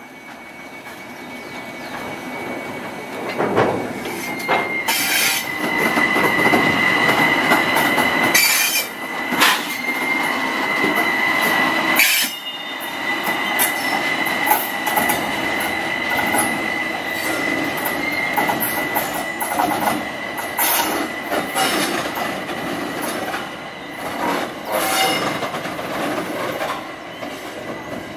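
Stadler electric rack locomotives rolling slowly along yard track. The wheels squeal in a steady high tone through most of the passage, with scattered clanks as the wheels cross rail joints.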